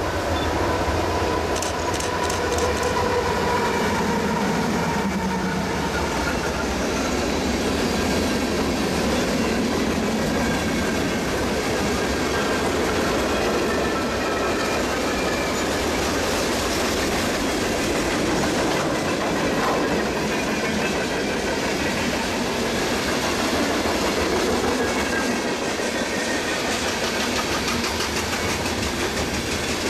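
A train rolling past close by in a steady, continuous run, its wheels clattering over the rails.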